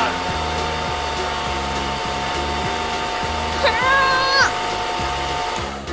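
Steady whirring, motor-like noise with a constant tone, which stops shortly before the end, over a background music bass line. A brief high, gliding cartoon-style vocal cry comes about four seconds in.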